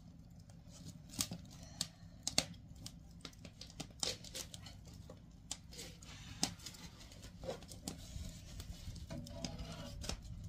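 Wood fire crackling in the firebox of a traditional Korean wood-fired hearth, irregular sharp pops and clicks over a low steady rumble, as burning sticks of rotten wood are shifted in the fire.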